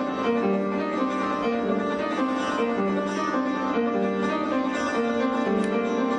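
Piano being played: a melody of held notes over a continuous accompaniment.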